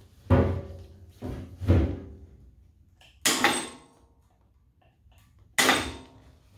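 Several sharp metal knocks and clunks, a few with a short ring, from the heavy 3/8-inch steel firebox as it is shifted against the smoker's cook chamber while hanging from a hoist strap.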